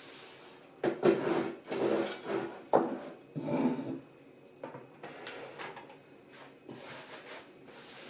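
Household objects being handled: a few sharp knocks with rubbing and sliding noises between them, busiest in the first half, then quieter and more scattered.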